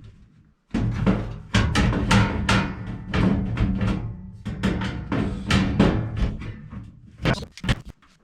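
Washing machine's sheet-metal top cover being knocked and pushed loose so it slides back: a run of irregular bangs and knocks with a ringing metal hum, thinning out near the end.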